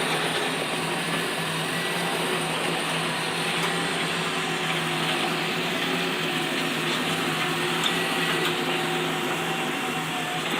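A heavy-equipment diesel engine running steadily under a constant load, with a steady drone and faint held tones.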